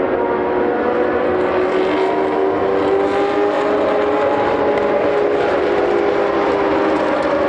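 Historic racing car engine running at fairly steady revs, its note drifting slowly up and down in pitch without a sharp rev change.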